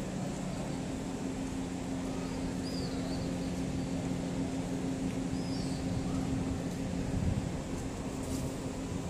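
Street ambience with a steady low mechanical hum that fades out near the end, and two faint bird chirps.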